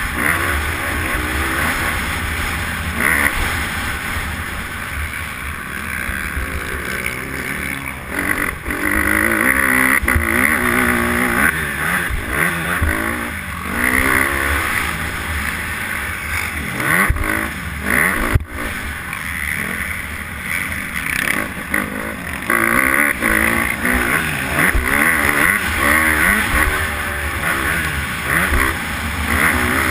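Honda motocross bike's engine revving up and down as it is ridden hard around a dirt track, its pitch climbing and dropping with throttle and gear changes. Wind buffets the microphone, and there are a couple of sharp knocks a little past halfway.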